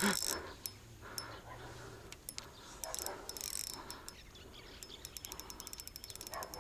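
Spinning reel clicking while a hooked carp is being played: a few single clicks, then a fast, even run of clicks near the end.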